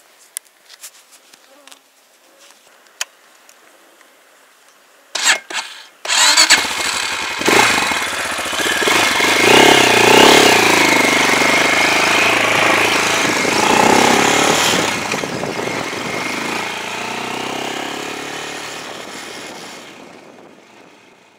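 Small motorcycle being started: faint clicks, then a couple of short bursts about five seconds in, and the engine catches about six seconds in. It revs up and runs as the bike pulls away and rides along the road, the sound gradually fading over the last several seconds.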